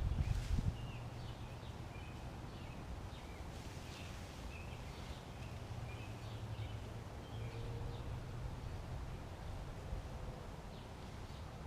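Birds chirping with short, repeated calls, faint, over a low steady hum, with a few dull thumps in the first second.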